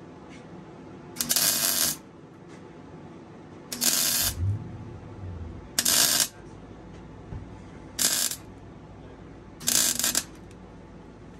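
MIG welder laying short stitch welds on thin exhaust tubing: five separate bursts of arc noise, each about half a second long, roughly two seconds apart. The welds are kept this short to fill a wide gap between a muffler and the factory exhaust flange without melting a hole through the thin metal.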